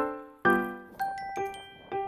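Background music: a light melody of struck keyboard notes and chords, each starting sharply and fading, about two a second.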